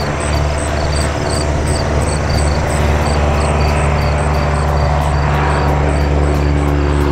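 An engine running steadily with a deep hum and a hiss, with a faint high ticking about three times a second.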